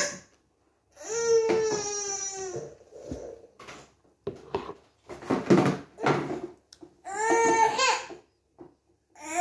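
Toddler crying: two long, slightly falling wails, one starting about a second in and another near the end, with choppy sobs between.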